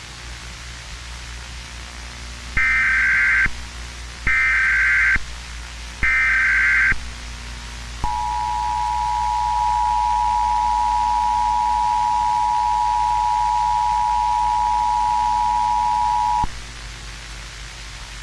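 Emergency Alert System header and attention signal: three short bursts of digital SAME header data, evenly spaced, then the two-tone attention signal held steady for about eight seconds before cutting off. A steady hiss and low hum run underneath.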